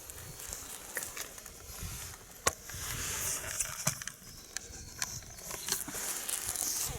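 Kittens scampering in play: light paw pattering and scrabbling with scattered small clicks and taps, one sharper click about two and a half seconds in, and soft low thumps.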